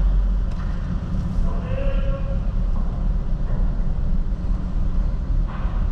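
Steady low rumble of a camper van's engine, heard from inside the cab as it creeps onto a ferry's car deck. A short muffled call, like a voice, comes about two seconds in.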